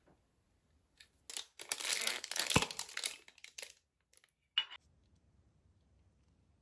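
Clear plastic shrink-wrap seal being torn and crumpled off a glass jam jar: about two and a half seconds of dense crinkling with one sharp snap in the middle, then a brief tap about a second later.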